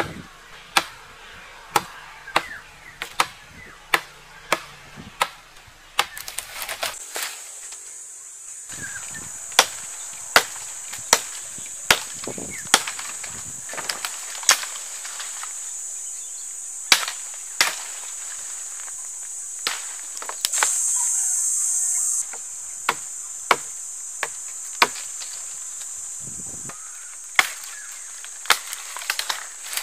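Sharp chopping knocks, about one every two-thirds of a second at first, then more scattered. About six seconds in, a steady high-pitched insect buzz starts and swells briefly partway through.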